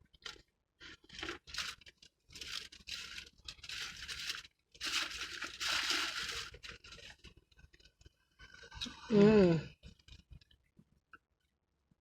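Close crunching of a hard taco shell being bitten and chewed, in a run of bursts lasting a few seconds. About nine seconds in comes one short, loud vocal sound.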